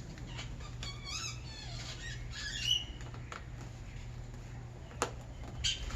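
Birds chirping and squawking in short wavy calls, about a second in and again near three seconds. A few sharp clicks from plastic window trim being pressed back into place are scattered through.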